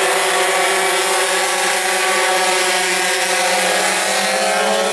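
A pack of pocket bikes buzzing at high revs as they race away from the start, their small two-stroke engines heard as several high-pitched tones at once. The pitch sags slightly near the end as the bikes pull away.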